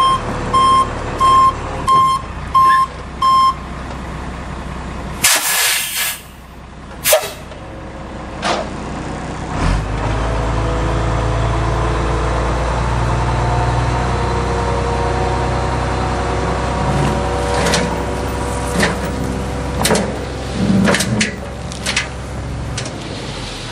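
Dump truck reversing with its backup alarm beeping about every two-thirds of a second, which stops a few seconds in. Then come two sharp hisses from the air brakes, and the diesel engine speeds up and runs steadily as the bed tips, with knocks and clatter as the load of dirt slides out of the bed.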